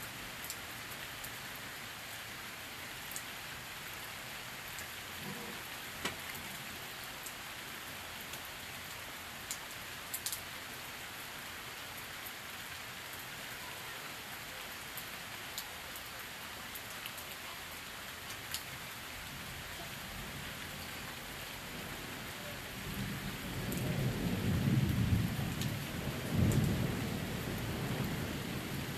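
Steady rain falling, with scattered drips ticking close by. About three quarters of the way through, a long low rumble of thunder builds and rolls on, loudest a few seconds after it starts.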